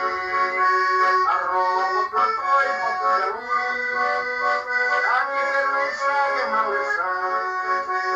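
Instrumental music with held chords and a moving melody line, without singing, in a passage of a song.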